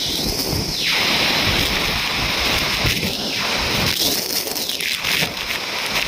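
Aagaya Gangai waterfall's falling water and spray as a loud, steady rush, with strong wind buffeting the microphone.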